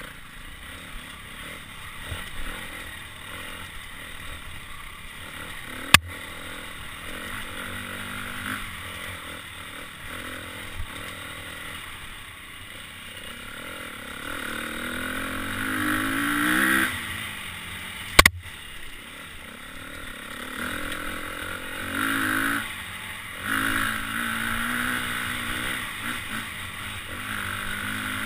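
Dirt bike engine heard from a helmet camera on a rocky single-track trail, its revs rising and falling with the throttle and climbing to a high peak a little past the middle. Two sharp knocks stand out, one about a fifth of the way in and one soon after the revs drop.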